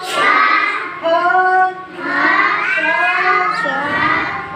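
A group of young children chanting the Hindi consonants in unison, in a sing-song tune, one held phrase after another as the letters are pointed out on the chart.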